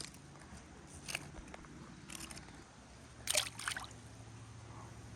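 Creek water sloshing and splashing around someone wading, in a few short bursts about one, two and three and a half seconds in, the loudest a double splash near the end.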